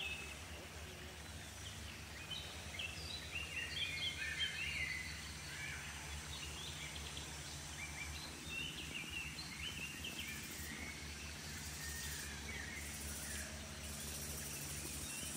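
Birds chirping in a quick run of short notes, busiest in the first five seconds and thinning out until they stop after about eleven seconds, over a steady low background hum of outdoor noise.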